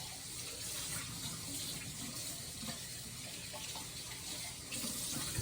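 Water running steadily from a kitchen tap, then shut off abruptly at the very end.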